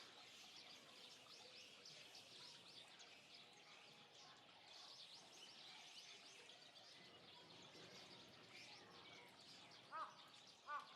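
Many small birds chirping continuously in overlapping high, quick chirps. Near the end a louder, lower call starts repeating about twice a second.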